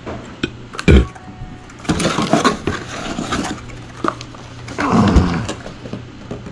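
Handling of a cordless angle grinder and its packaging: a sharp knock about a second in, then two spells of rustling and clattering.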